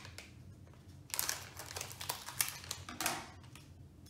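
Scissors cutting the top off a plastic mystery bag, then the bag crinkling as it is handled: a quick run of sharp snips and crackles from about a second in to about three seconds in.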